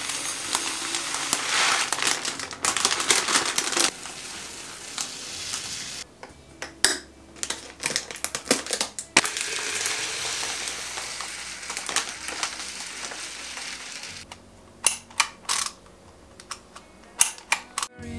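Jasmine rice and other dry grains poured from packets into glass storage jars, a rushing hiss of grains sliding onto glass that comes and goes. Near the end, several sharp separate clicks from a handheld Dymo embossing label maker being squeezed.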